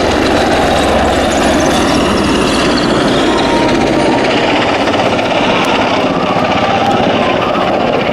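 Royal Navy AgustaWestland AW101 Merlin helicopter flying a display, loud: rapid rotor-blade chop over a steady rush of engine noise, with a high whine falling in pitch a couple of seconds in.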